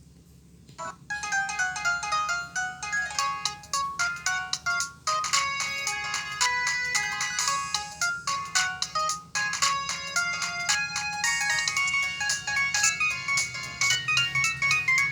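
An LG ringtone played on a Samsung SGH-A737 phone: a fast melody of short electronic notes that starts about a second in, after a brief pause.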